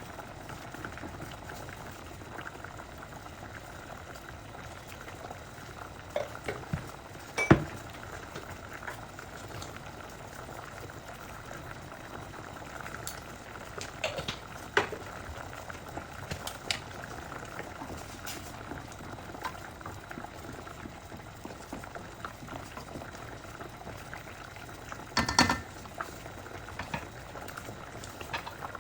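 Risotto bubbling steadily as it simmers in the pan, with a few sharp clicks and knocks, the loudest a short cluster about three-quarters of the way through.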